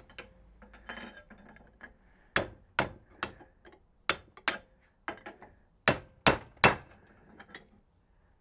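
Hammer striking a steel tool held against the old wheel-bearing inner race on an MK1 VW Rabbit front hub, driving the pressed-on race off. The blows are sharp metal-on-metal strikes in quick groups of two or three, starting about two seconds in.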